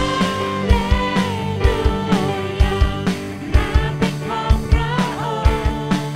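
Live worship band playing a song: a woman's lead vocal with backing singers over electric guitar, keyboard and a drum kit keeping a steady beat.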